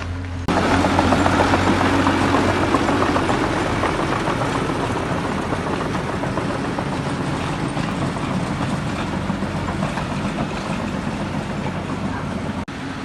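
Heavy diesel construction machinery running. About half a second in, a loud, noisy rush sets in over the engine and slowly fades.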